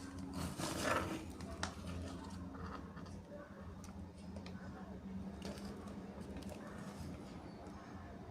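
Plastic toy pieces and packaging being handled: scattered small clicks and rustles, with a burst of rustling just before a second in and a sharp click shortly after, over a low steady hum.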